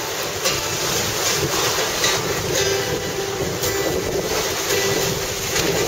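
Sea wind buffeting the microphone over waves breaking on the shore, a steady rushing noise. A few faint plucked string notes sound in between.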